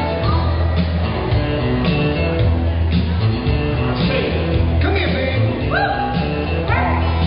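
Dance music with a steady beat and bass line, a singing voice coming in about four seconds in.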